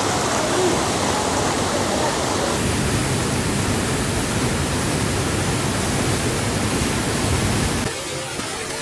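Waterfall water rushing in a steady, even noise, dropping somewhat in level about eight seconds in.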